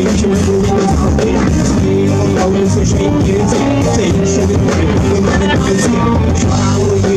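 Live rock band playing loudly and steadily over a PA system: electric guitar with drum kit and cymbals keeping a regular beat.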